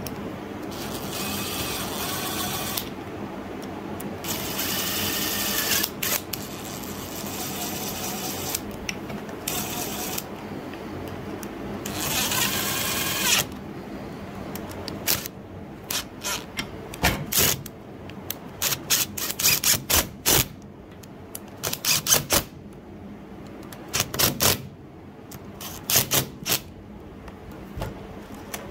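Cordless drill-driver with a hex bit running the cap screws into a nail gun's top cap: several spells of motor whirring a second or two long, then many short trigger bursts as the screws are snugged down.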